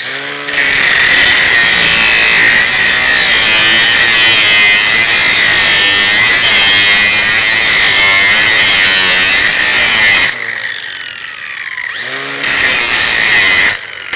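Angle grinder with a thin 1/8-inch disc grinding into the root gap of a pipe joint, opening the gap back up. It lets off about ten seconds in and spins down, then grinds again in two short bursts near the end.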